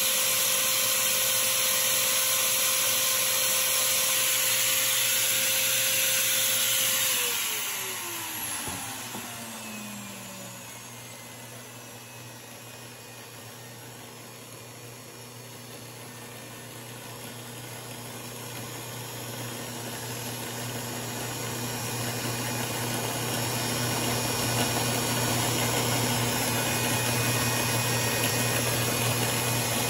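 Power drill motor spinning a screw in its chuck while sandpaper is held against the screw head, with a steady hiss of sanding. About seven seconds in, the sanding stops and the motor winds down with a falling whine; it runs quieter for a while, then gradually builds back up to a steady hum.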